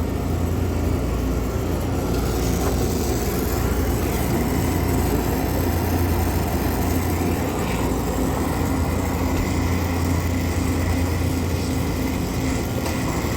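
Steady mechanical drone of machinery running, with a constant low hum.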